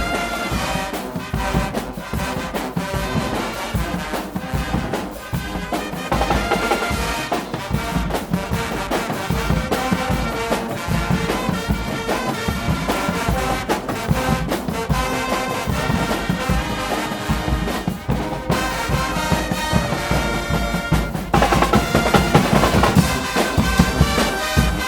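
Guggenmusik carnival band playing: massed trumpets and trombones over a constant pounding drum beat, getting louder about three-quarters of the way in.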